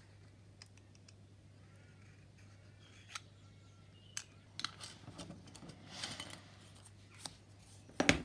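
Fine razor saw scraping in short, faint strokes along a groove in thin styrene kit plastic, with a few light clicks, deepening the cut to part the bomb bay doors. A louder knock comes near the end.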